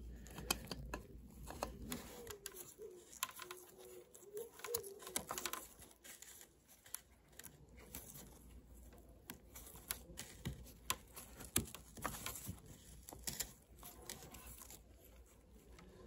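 Faint handling noises: small scattered clicks, taps and rustles of gloved hands and metal parts as a threaded fitting is worked into the fuel pump flange.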